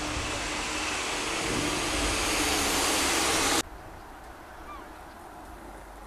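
A loud rushing roar growing steadily louder, cut off suddenly about three and a half seconds in, leaving a much quieter background with a brief faint rising note.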